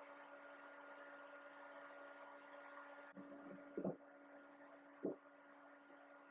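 Faint steady electrical hum, with two short knocks about four and five seconds in as wooden boards are set down on a plywood workbench.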